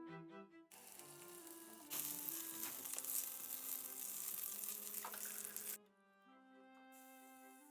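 Food sizzling in hot oil in a pan, starting and stopping abruptly, over instrumental background music.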